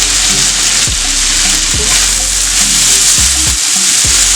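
Vegetables frying in olive oil in a pan, a steady dense sizzle, with the stock cube and salt just added. Background music with a regular low beat plays underneath.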